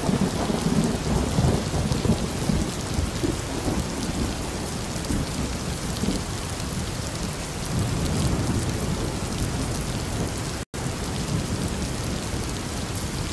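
Steady heavy rain with thunder rumbling under it, swelling near the start and again about two-thirds of the way through. The sound cuts out for an instant once near the end.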